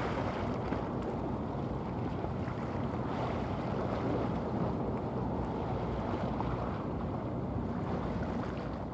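Wind rumbling on the microphone over a steady wash of sea water, with a faint low drone underneath.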